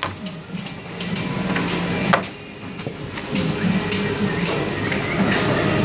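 A butcher's knife and gloved hands working lamb meat on a wooden cutting table: irregular sharp clicks and knocks of the blade and meat against the board, with one louder knock about two seconds in, over steady background noise.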